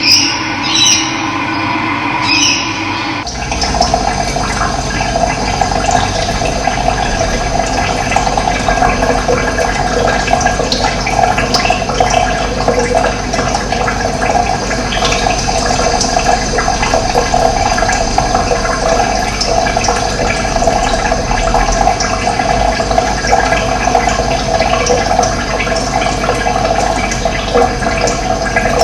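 Running water, a steady rushing flow. The sound changes abruptly about three seconds in, as if cut to another stretch of the recording, and runs on evenly after that.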